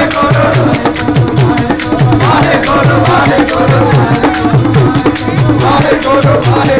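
Sikh kirtan: voices singing a devotional hymn over a drum keeping a steady beat, with constant jingling hand percussion.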